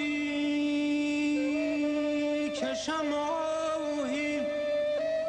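Ney (Persian reed flute) playing a slow melodic line of long held notes, ornamented with short dips and slides between them, in a Persian classical instrumental passage.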